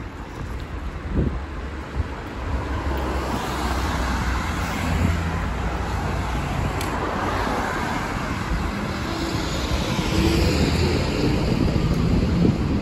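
City street traffic: cars passing on the road alongside, swelling past twice, over a low steady rumble of wind on the microphone from the moving bicycle.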